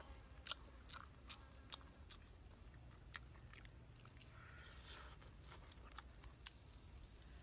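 Faint close-up eating sounds: biting and chewing braised chicken, with short sharp mouth clicks and smacks scattered through, about ten in all.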